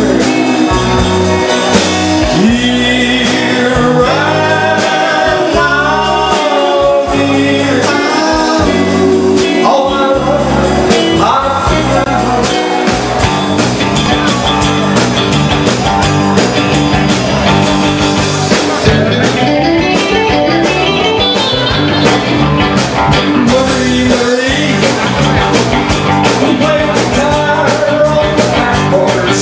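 Live rock band playing: electric guitars and a drum kit, with a man singing lead into a microphone. The singing is clearest in the first ten seconds or so.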